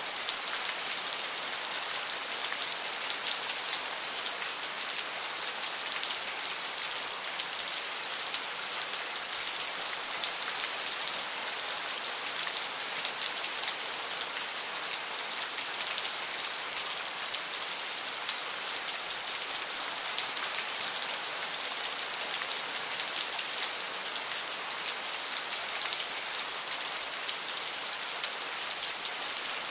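Steady rain: an even hiss thick with the ticks of individual drops.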